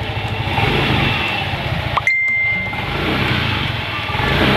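Yamaha Mio i 125 scooter's single-cylinder engine running and being revved with throttle twists, testing a newly fitted clutch lining and 11 g flyballs. About two seconds in there is a sharp click and a short high beep.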